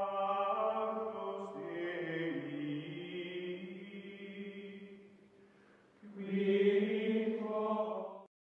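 Outro music of choral chanting, voices holding long sustained notes. The pitch shifts about two seconds in and the sound fades almost away, then a second louder chord comes in near the end and cuts off suddenly.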